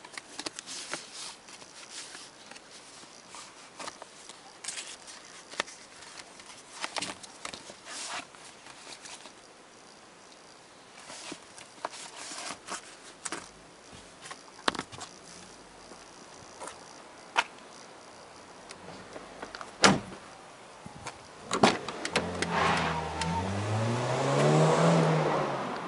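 Paper pages and a plastic document wallet being handled and flipped, with scattered soft clicks and rustles. Near the end, louder, a vehicle engine rises in pitch as it accelerates.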